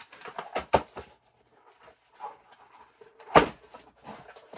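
Graded comic-book slabs and their plastic packaging being handled on a table. A few quick knocks and rustles come near the start, then quieter rustling, then one sharp knock, the loudest sound, about three and a half seconds in.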